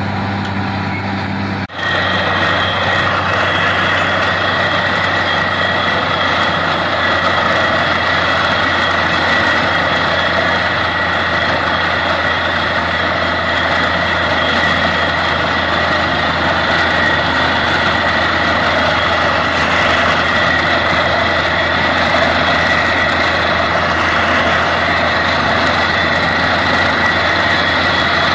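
Truck-mounted borewell drilling rig running loud and steady as it drills, with a momentary break about two seconds in, after which it carries on slightly louder.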